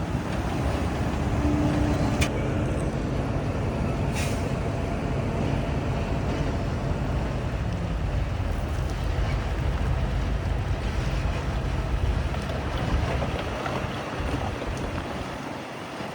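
Heavy diesel earthmoving machinery running with a steady low rumble, with a brief hiss about four seconds in.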